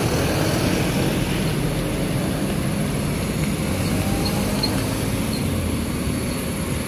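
Scania K310 coach's diesel engine running steadily as the bus drives slowly past.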